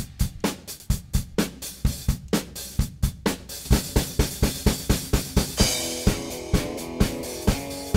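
Background music: a drum kit playing a steady beat of kick, snare and cymbals, with pitched instruments coming in about three-quarters of the way through.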